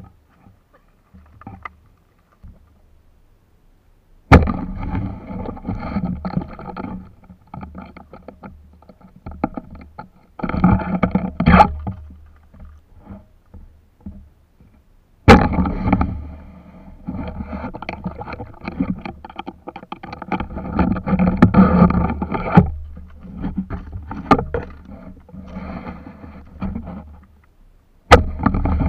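Shallow seawater sloshing and churning close to the microphone, in long noisy stretches that start suddenly about four seconds in, around fifteen seconds in, and near the end.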